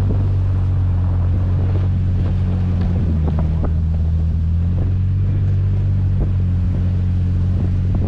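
Toyota truck's engine running in a steady low drone as it drives slowly through deep snow, with wind buffeting the microphone mounted outside on the truck's body.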